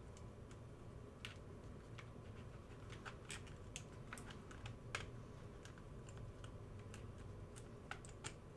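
Small 3D-printed plastic gear and frame parts clicking and tapping against each other as they are fitted together by hand, in faint, irregular clicks.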